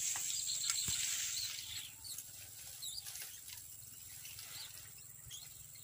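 Outdoor ambience dominated by a steady high-pitched insect drone, with a few faint chirps about two to three seconds in.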